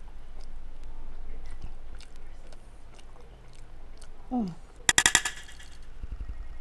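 Instant noodles (Indomie Mi Goreng) being eaten: soft chewing clicks, then a loud slurp of a forkful of noodles about five seconds in, heard as a rapid crackling rattle that stops after about half a second.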